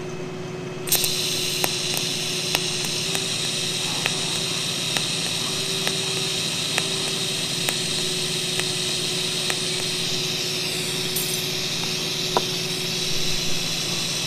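Pulsed TIG welding arc, switching on about a second in and then running as a steady hiss, with faint regular ticks about once a second. The pulse's background current is turned down to 10% to keep heat out of the box tube as it is welded.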